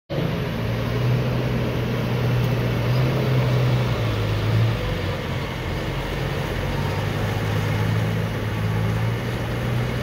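John Deere 310SK backhoe loader's diesel engine running steadily as the machine drives and turns, with a low, even hum whose pitch dips slightly about halfway through.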